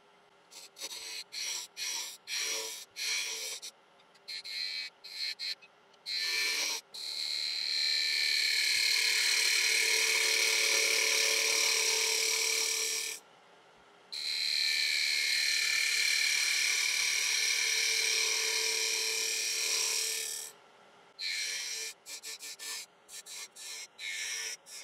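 Wood-turning tool cutting a spinning ash blank on a lathe: a run of short, light cuts, then two long steady cuts of several seconds each, then short cuts again near the end. The lathe's own motor is barely heard in the pauses.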